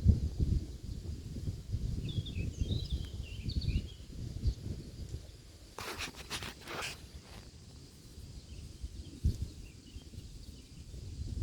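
Outdoor ambience: uneven low rumble, like wind on the microphone, with a few small bird chirps between two and four seconds in. About six seconds in there is a short burst of harsh, rustling noise.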